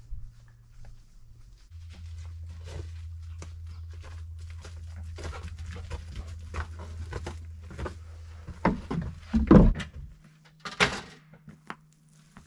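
Footsteps crunching over leaf litter and frozen ground, then dry branches knocking and thudding as they are set down on a wooden plank porch, the loudest knocks near the end. A steady low hum runs underneath.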